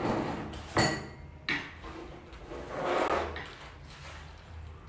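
Handling sounds on a work surface: two sharp knocks about a second in, then a soft rubbing, as items are moved and set down.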